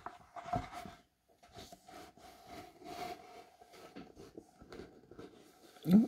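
A picture book's pages being turned by hand, paper rustling and rubbing with a soft knock about half a second in. A short vocal sound comes just before the end.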